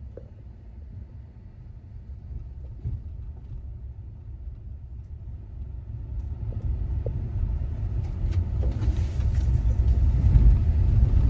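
Low, steady rumble of a vehicle in motion, growing louder over the last few seconds, with a few faint clicks.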